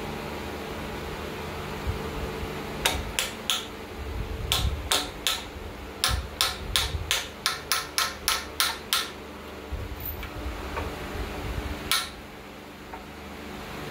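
Ball peen hammer striking a second ball peen hammer held against a freeze plug, driving the plug into the camshaft end of a Graham engine block. Each strike is a sharp metallic ring. A few spaced strikes come first, then a quick run of about three strikes a second, and a last single strike near the end.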